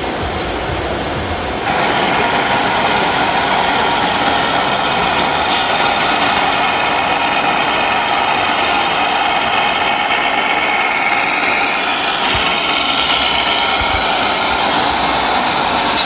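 Steady engine-like running sound of a radio-controlled MAN heavy-haul truck model, louder and brighter from about two seconds in.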